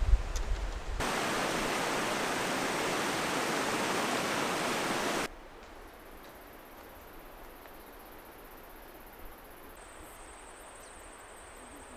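Gusty wind rumbling on the microphone for about a second, then a steady rush of running water for about four seconds that cuts off abruptly. After that a faint quiet background with a thin, high-pitched steady buzzing.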